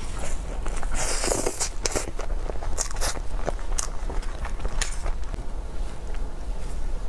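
Close-miked eating sounds: biting into and chewing a soft cream-topped pastry, with a denser crackling rustle about a second in. Scattered clicks and scrapes follow as dishes and containers on the table are moved.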